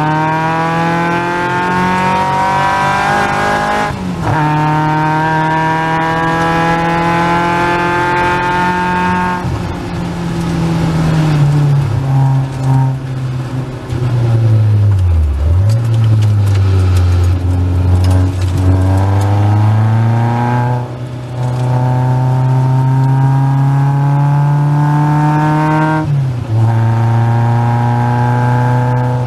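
Caterham Seven's 2.3-litre Ford Duratec four-cylinder pulling hard with rising revs and quick upshifts about 4 s and 26 s in. In the middle the revs fall away through downshifts to near idle, then the engine picks up gently and holds a steady speed.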